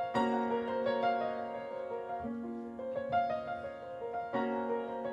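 Piano playing an instrumental passage of broken chords, the notes struck one after another and left ringing.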